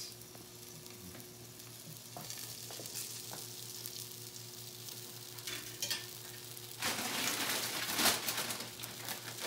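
Fork scraping and tapping wet, drained sauerkraut out of a wire-mesh strainer onto a sausage in a bun, with a few light clicks, and a louder stretch of scraping noise from about seven seconds in. A steady low electrical hum runs underneath.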